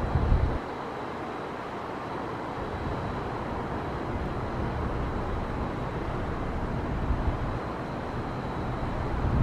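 Wind buffeting the microphone over a steady outdoor background hiss, with stronger gusts in the first half-second and again at the very end; no siren tone is heard.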